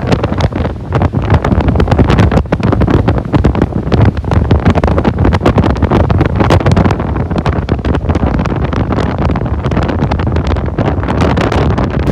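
Strong typhoon wind buffeting the iPhone's microphone: a loud, gusty rumble with rapid, irregular thumps of wind hitting the mic.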